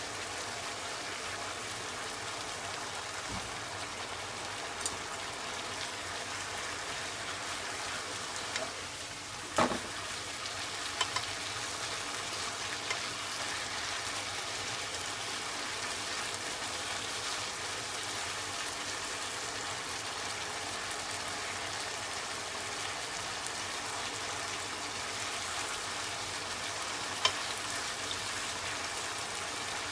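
Daikon peel and pork sizzling steadily in a pan as the stir-fry simmers, with a few sharp clicks of a utensil against the pan.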